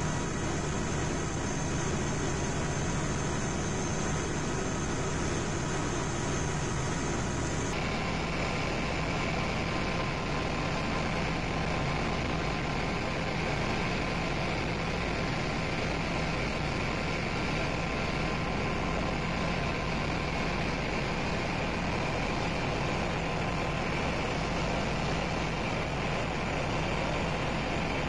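Steady engine and rotor noise heard from inside a helicopter cabin, a constant drone with a thin whine on top. Its tone shifts once about eight seconds in.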